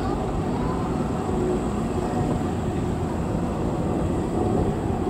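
Low-floor articulated tram passing close by on snowy street tracks: a steady rumble of wheels and running gear.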